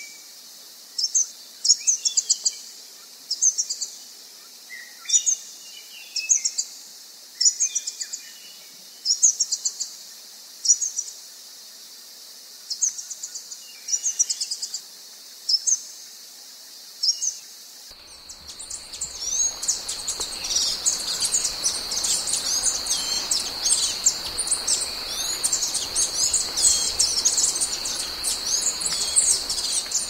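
African dusky flycatcher calling: short, thin, high-pitched call phrases repeated about once a second or so. About two-thirds of the way in, a second recording takes over with dense, continuous high twittering over a steady high-pitched hum and background hiss.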